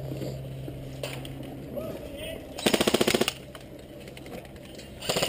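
Airsoft rifle firing two short full-auto bursts of rapid clicks, the first about two and a half seconds in, the second starting near the end.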